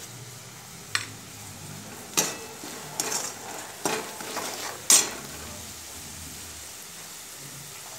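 Onion, chilli and curry-leaf masala sizzling steadily in oil in a metal kadai. A slotted metal spatula knocks and scrapes against the pan about five times during the first five seconds of stirring, then the sizzle goes on alone.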